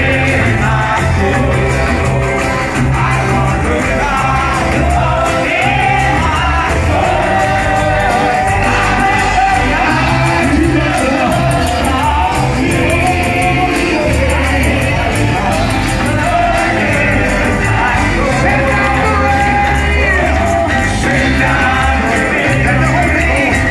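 Live gospel music: a choir singing over a band with a heavy, pulsing bass line, echoing in a large church hall.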